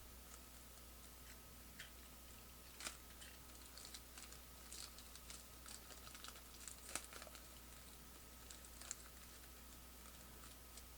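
Faint scattered clicks and crinkles of plastic trading cards being handled and shuffled, over a low steady hum.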